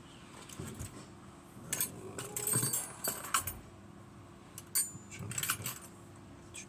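Light metallic clicks and clinks of an Era 975 lever padlock and lever-lock picking tools being handled, coming in a handful of short scattered clusters.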